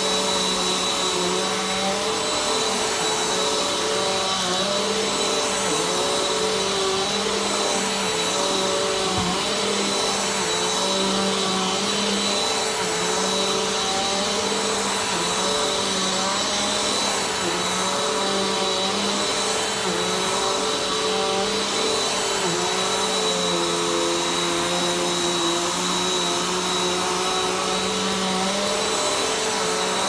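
Bagless upright vacuum cleaner running steadily while being pushed back and forth over carpet, its motor pitch wavering with the strokes. The motor note sinks lower for a few seconds near the end, then comes back up.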